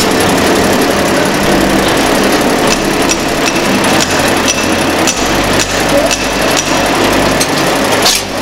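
Electric MT5-250 noodle making machine running as a dough sheet is fed through its steel rollers: a steady mechanical whir with a light ticking about twice a second.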